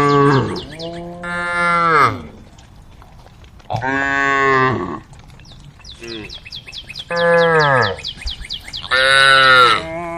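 Cows mooing repeatedly: four long, loud moos after the tail of another, each sliding down in pitch at its end.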